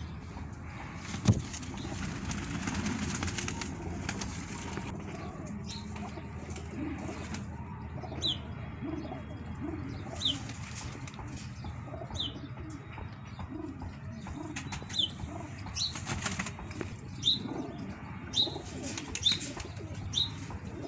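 Domestic pigeons in a loft, with wings flapping and birds cooing. From about a third of the way in, short high chirps repeat every second or two.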